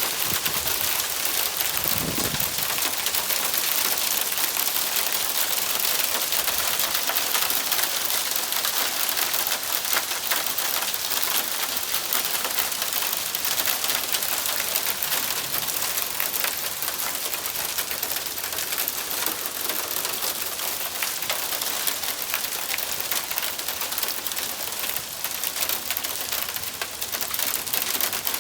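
Small hail mixed with rain pelting down: a dense, steady patter of small hard impacts.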